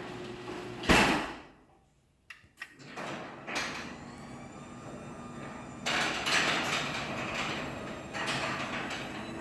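Garage door running on its chain-drive opener and coming down with a thud about a second in. After a short quiet and a couple of clicks, a garage door runs again with a steady mechanical clatter of opener and rollers, louder from about six seconds in.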